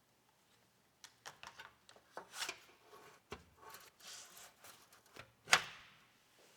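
Computer parts handled during a PC build: a run of clicks, taps and short rubbing or sliding noises starting about a second in, with one sharp, loud click about five and a half seconds in.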